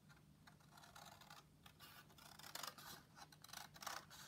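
Scissors snipping through heavy paper card (about 200–220 g) along a curved cutting line: a series of faint, crisp cuts a second or less apart.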